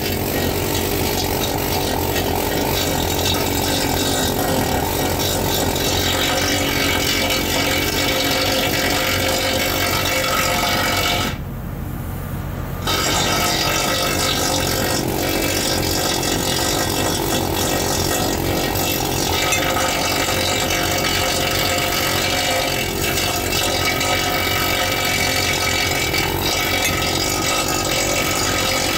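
Loud, steady drone of running ship's machinery, holding one even level throughout, briefly dulled for a moment just before the middle.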